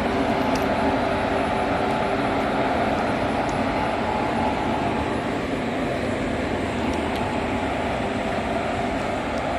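WAG-7 electric freight locomotive giving off a steady whirring, with a few even tones held throughout.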